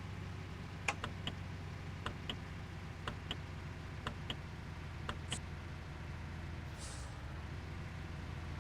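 Water truck's engine running steadily, with five pairs of light clicks about a second apart and a brief hiss about seven seconds in.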